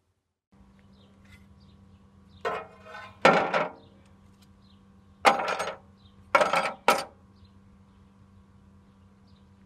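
Rusty steel blades, a ninja sword and a throwing knife, set down against a rusted steel tray: a run of sharp metallic clanks with short ringing, two or three about two and a half seconds in and three more between five and seven seconds.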